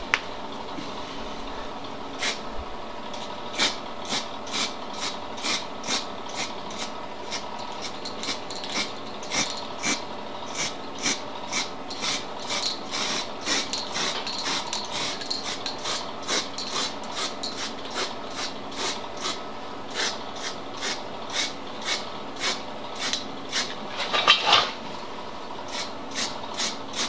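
Aerosol can of etching primer spraying in short repeated hisses, about two a second, with a longer hiss near the end, as bare welded steel on a car's wheel arch is primed. A faint steady hum runs underneath.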